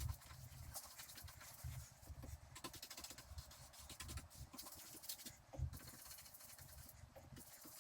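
Faint, irregular scratching with light taps and soft low thumps.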